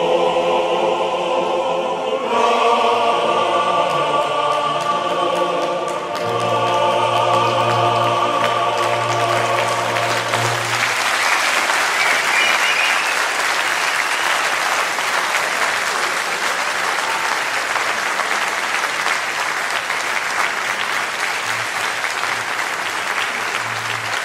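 A choir sings long held chords that end about ten seconds in, and then an audience applauds steadily.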